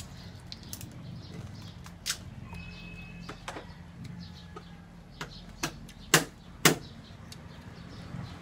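Crunchy chewing of crispy lechon (roast pork) skin: a series of sharp, separate crunches, the loudest two about six and six and a half seconds in.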